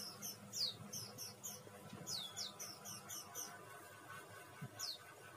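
Faint high-pitched bird chirping: a rapid series of short falling chirps, several a second, thinning out after about three seconds, with one more chirp near the end.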